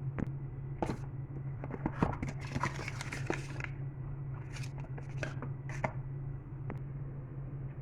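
Packaging being handled during an unboxing: a busy stretch of rustling and scraping from about one to nearly four seconds in, then three short rustles, over a steady low hum.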